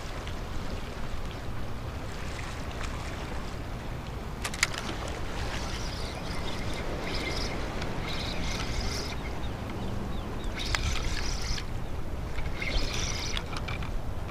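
Steady outdoor wind noise on the microphone over open water, rumbling low down. A few brief spells of higher hissing come in the middle and later, with a single short click in between.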